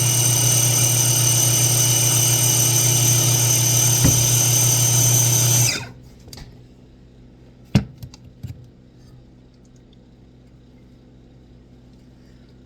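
An electric kitchen appliance motor runs steadily with a high whine, grinding nuts into peanut butter, then is switched off about six seconds in. A sharp knock near eight seconds follows, with a few lighter clicks.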